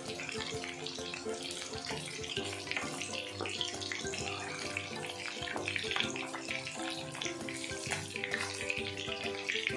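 Boneless chicken pieces deep-frying in hot oil in a wok: a steady bubbling sizzle, with background music underneath.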